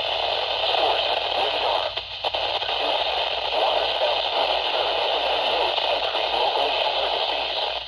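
Weather radio receiver's speaker hissing and crackling with static from a weak signal, the NOAA Weather Radio broadcast's voice faint beneath it. The static dips briefly about two seconds in.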